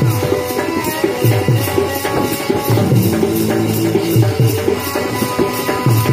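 Live folk music for a dance: deep hand-drum strokes that drop in pitch, a steady jingling percussion beat about three strikes a second, and held tones of a melody instrument.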